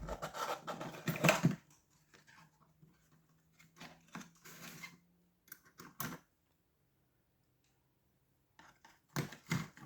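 Hands handling a small metal challenge lock and its wrapping: a busy rattle and rustle in the first second and a half, then scattered light clicks and clinks. A quiet gap of about two seconds follows before more clicks near the end.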